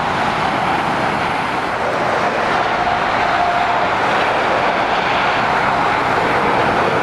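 Steady road noise of heavy lorries and cars passing on a dual carriageway, tyre and diesel engine noise blended together, growing a little louder toward the end as trucks approach.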